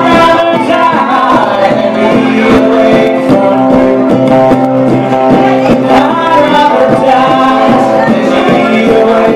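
Live acoustic guitar strummed steadily under sung vocals, a song in full swing at a loud, even level.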